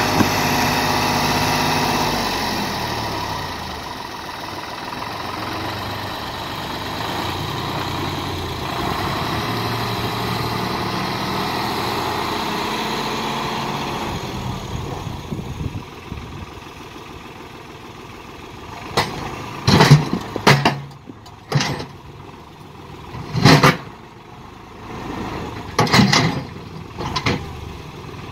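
New Holland tractor's diesel engine working as its front loader pushes rocks, the engine note shifting in pitch, then growing quieter about halfway through. In the second half several short, loud knocks stand out over the running engine.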